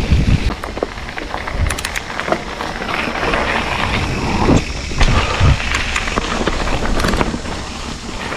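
Mountain bike being ridden on a dirt trail: tyres rolling over dirt and gravel, with scattered knocks and rattles from the bike over bumps and a steady rush of wind on the microphone.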